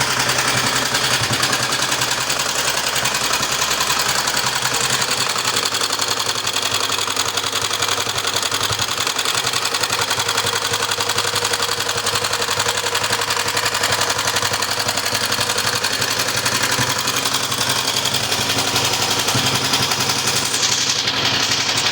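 A 1961 Matchless G3's single-cylinder four-stroke engine running steadily, with a rapid, even beat of firing and mechanical clatter.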